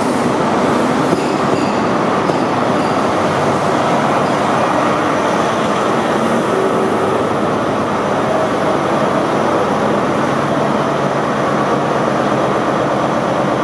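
InterCity 125 high-speed train running slowly into the station and coming to a stand, with the rear diesel power car's engine running loudly as it comes alongside. A faint high squeal of wheels or brakes is heard in the first few seconds.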